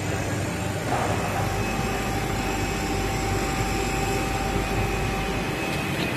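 Richpeace automatic single-head template sewing machine running, its head stitching and its gantry motors driving, with a steady mechanical noise throughout. A thin steady whine comes in about a second in and stops near the end.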